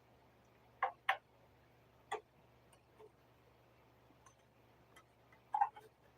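Irregular small clicks and taps, about eight of them, from PS5 plastic casing parts and screws being handled during disassembly, with a faint steady hum underneath.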